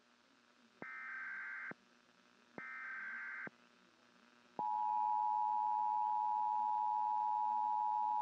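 Emergency Alert System broadcast tones: two short warbling electronic data bursts about a second apart, then, from about four and a half seconds in, the loud steady two-note attention tone. These tones announce an emergency alert.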